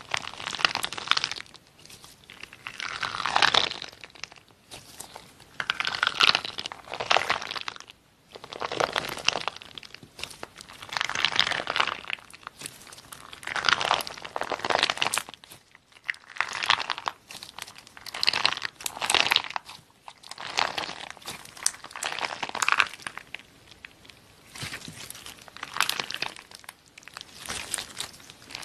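Clear slime packed with large glitter-coated foam balls being squeezed and kneaded by hand, giving a burst of crackling with each squeeze, one every second or two.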